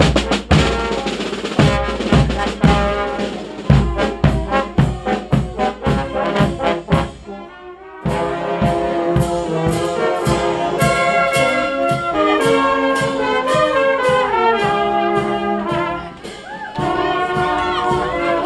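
A marching fanfare band: a steady drum beat with bass drum and snare for the first several seconds, then, after an abrupt change, brass instruments play a tune in held chords.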